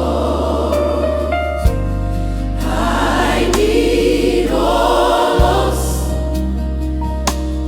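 Gospel choir singing with instrumental backing: a steady bass line shifting notes every few seconds under sustained choral voices, with occasional sharp percussion hits.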